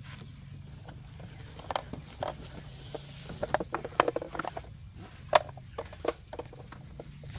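Hard plastic cooler being lifted out of a car's cargo area: a string of knocks, clunks and scrapes, with the loudest bang about five and a half seconds in.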